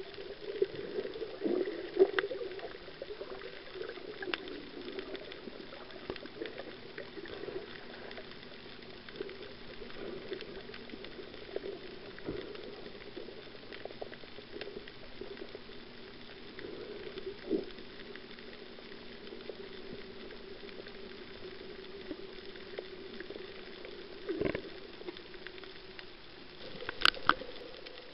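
Underwater sound picked up by a camera in a waterproof housing while snorkeling over a coral reef: a steady muffled hum with scattered clicks and crackles. A few louder knocks come through, two of them close together near the end.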